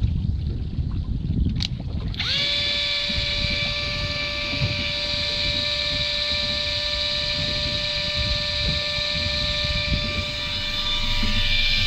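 Electric jigging reel's motor whining as it winds in line: it spins up about two seconds in and then holds a steady pitch. A single click comes just before it starts, over a low rumble of wind and boat noise.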